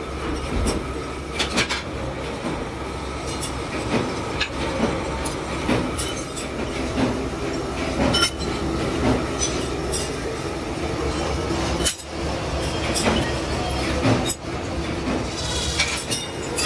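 Workshop machine tools running with a steady low rumble, over it frequent sharp metallic clicks and clinks as steel sprockets are handled and stacked.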